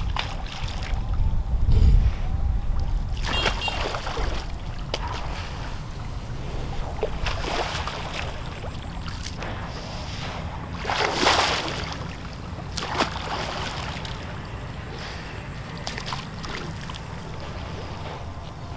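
Water buffalo moving through water, sloshing and splashing in a few short bursts, the loudest about eleven seconds in, over a steady low rumble of wind on the microphone.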